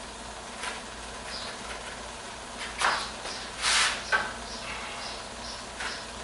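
A few short scuffs and scrapes, the loudest a little under three seconds in and again just before four seconds: a person moving in flip-flops and handling 2x4 studs on a concrete floor.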